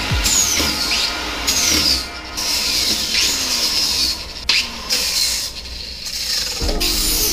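Angle grinder with a sanding disc grinding against the boat's fiberglass transom around the keyhole cutout, taking off wood rot and rust. Its high whine drops in pitch several times as the disc bites into the surface.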